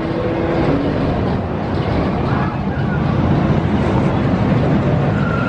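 Vekoma suspended looping roller coaster train rumbling along its steel track, a steady rush that slowly grows louder.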